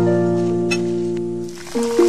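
Background music of gentle plucked, harp-like notes. About three quarters of the way in, a steady hiss of banana slices deep-frying in oil rises under the music.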